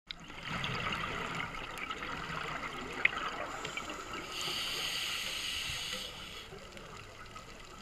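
Underwater ambience heard through a diving camera: a steady crackling hiss with scattered clicks, one sharper click about three seconds in, and a louder rushing hiss from about four and a half to six and a half seconds in.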